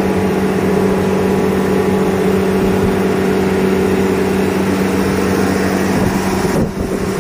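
Refrigeration condensing unit running: a Copeland 13 HP semi-hermetic compressor hums steadily under the whoosh of its axial condenser fans. The sound dips briefly near the end.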